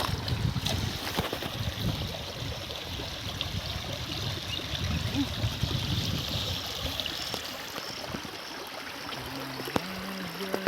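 Water flowing steadily along a full drain channel, a continuous trickling rush.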